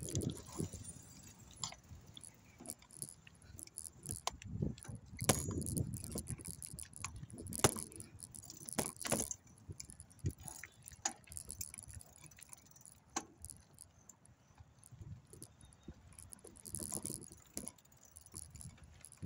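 Bicycle rattling and clinking over a rough trail, with irregular sharp knocks and a metallic jangle from loose parts.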